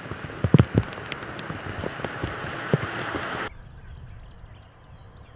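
Wet, windy outdoor ambience: a steady hiss of wind and rain with scattered drips and taps, and a few louder knocks about half a second in. After an abrupt cut it turns quieter, with birds chirping.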